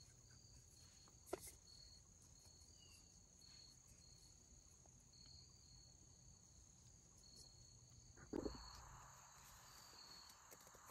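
Near silence with insects chirping faintly in short, irregular high bursts over a steady high drone. A soft click comes about a second in and a dull knock near eight seconds in.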